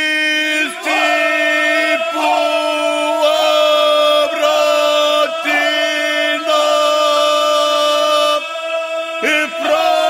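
Ganga, traditional unaccompanied Croatian folk singing by men's voices: long held notes, each phrase breaking off with a short dip in pitch about once a second. It goes quieter briefly near the end.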